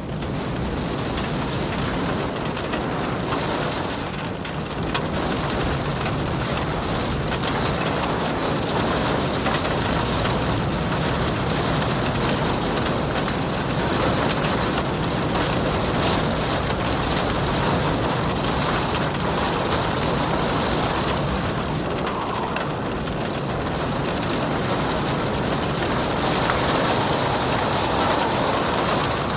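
Steady rain with wind, a dense, even hiss of many drops that holds at one level throughout.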